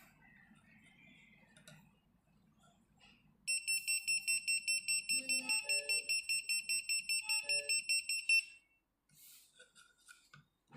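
Water leak sensor's built-in buzzer sounding its alarm, a rapid high-pitched beeping at about five beeps a second that starts about a third of the way in and stops after about five seconds, signalling that water has been detected.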